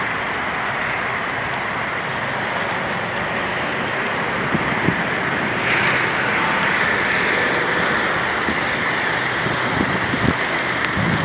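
Steady outdoor traffic noise mixed with wind on the microphone, swelling a little about six seconds in.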